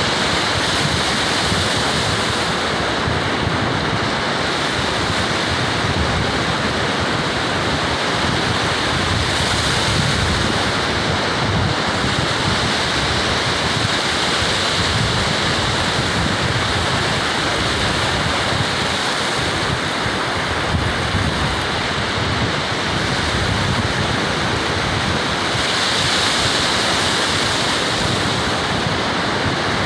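Ocean surf washing steadily, with wind on the microphone; the wash swells about ten seconds in and again near the end.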